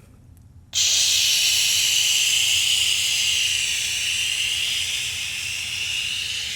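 A long, steady hiss of rushing air that starts abruptly under a second in and eases slightly near the end.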